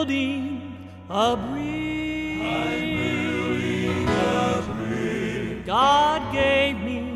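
Southern gospel male vocal quartet singing in close harmony with vibrato, voices swooping up into new phrases about one second in and again near six seconds.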